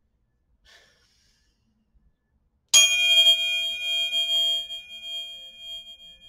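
A tuning fork struck once, nearly three seconds in, with a sharp clang that settles into a steady high ring and fades slowly.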